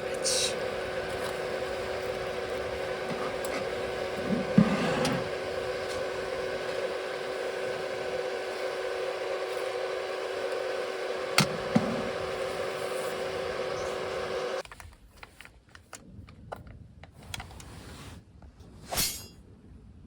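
Steady machine hum with a few clear fixed tones, cutting off suddenly about fifteen seconds in, after which only small clicks and knocks are heard.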